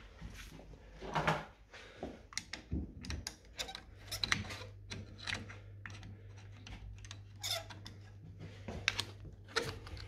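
Scattered clicks and knocks from handling a screwdriver and parts inside an open boiler casing. From about four seconds in, the low steady hum of a running Grundfos UP 15-50 central-heating circulating pump sits underneath.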